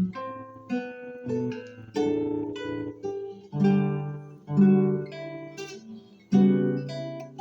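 Solo classical guitar playing a slow piece: plucked chords and single melody notes, each struck sharply and left to ring and fade.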